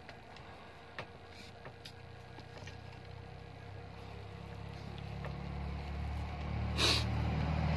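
A low vehicle engine rumble that builds steadily louder over the second half, over small scattered clicks of fingers working rice against a plate while eating by hand. A single sharp click sounds shortly before the end.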